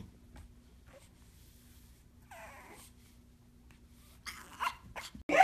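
Pug puppy's small high-pitched barks: one drawn-out yelp about two seconds in, then a few short yips near the end.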